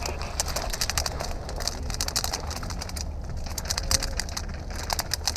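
Scattered sharp clicks and snaps, several a second and unevenly spaced, over a low steady rumble.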